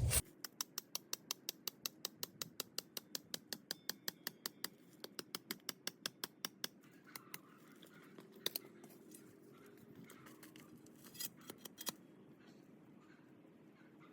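Hammer striking a steel rebar stake to drive it into the ground: quick, even metallic taps about four or five a second, slowing after about six seconds to a few scattered taps.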